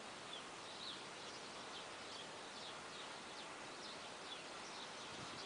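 Birds chirping: many short, high chirps, a couple each second, over a steady faint outdoor background hiss.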